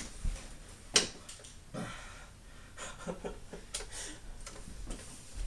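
A toy foam-dart blaster fires once with a sharp snap about a second in, amid lighter clicks and rustling.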